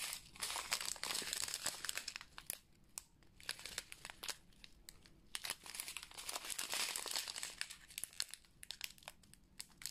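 Small clear plastic bags of resin diamond-painting drills crinkling as they are handled and shuffled, in spells of crackling with short quieter gaps.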